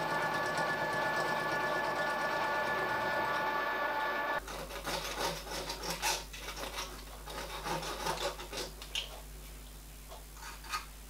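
Milling machine running with a steady whine as an end mill cuts a mild steel bracket, cutting off abruptly a little over four seconds in. Then irregular light scraping strokes and clicks of a hand deburring blade drawn along the edge of the steel part.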